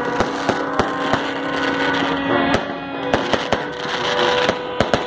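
Fireworks display: aerial shells bursting in a rapid, irregular string of sharp bangs and crackles.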